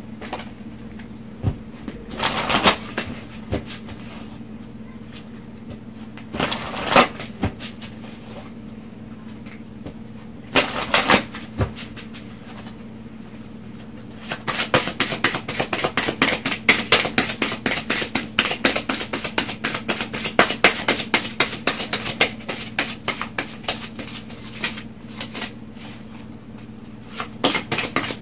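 Oracle card deck shuffled by hand: a few short bursts of cards slipping and tapping in the first half, then about twelve seconds of continuous shuffling.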